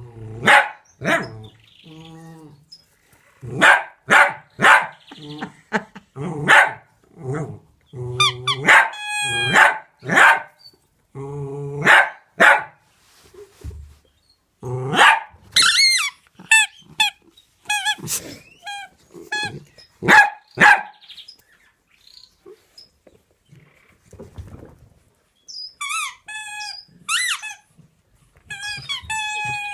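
Dog barking repeatedly in short bursts, with stretches of high-pitched, wavering yelping cries.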